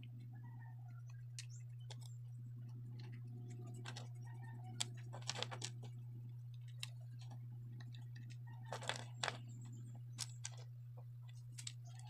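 Scattered light clicks and taps from ceiling fan motor parts being handled, in small clusters, over a faint steady low hum.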